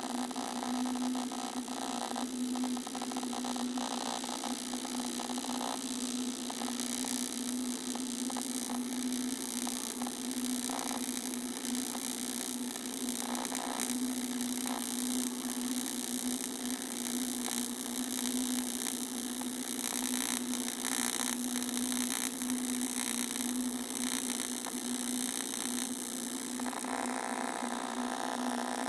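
Unpulsed AC TIG welding arc on thin aluminum from an AHP AlphaTIG 200X: a steady buzzing hum with a hiss over it.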